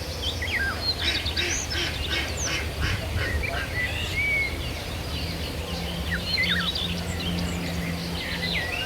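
Birds calling: a busy run of short high chirps and whistled glides, some harsher, with no single call standing out.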